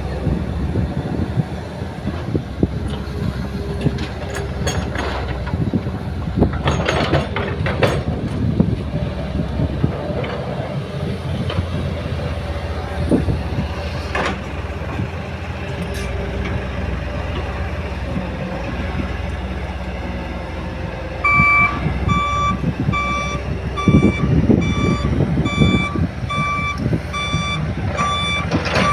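Diesel engines of a hydraulic excavator and a dump truck running steadily, with knocks and clanks as soil and rock go into the truck's steel bed in the first part. From about two-thirds of the way through, a backup alarm beeps about twice a second.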